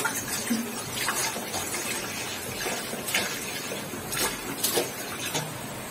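Kitchen sounds of milk being poured into a pot for atole: a few light knocks and clinks of the pot and utensils over a steady hiss.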